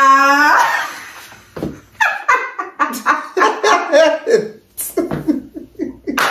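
A long held vocal note ends about half a second in, followed by a few seconds of people laughing in short, rapid bursts.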